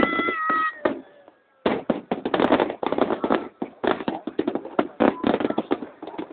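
Fireworks crackling: dense, irregular pops and cracks from crackling stars. They break off for about half a second near the one-second mark, then come back and run thick for several seconds.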